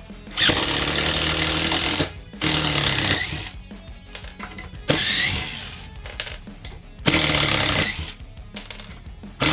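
Makita TD022D 7.2 V pen-style impact driver running in four bursts, the first the longest, hammering as it drives a 40 mm screw into pine.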